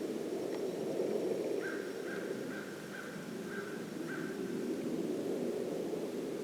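A bird calling about six times in quick, even succession, each call short and harsh, over a steady low rushing noise.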